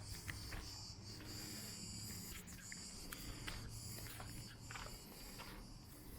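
Footsteps on an outdoor path, short scuffs every half second or so, over a steady high hiss and a faint low hum.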